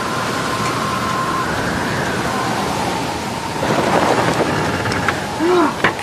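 Quad bike engine running with a steady rumble and a faint whine, growing louder about three and a half seconds in. A short strained groan comes near the end, among a few sharp clicks.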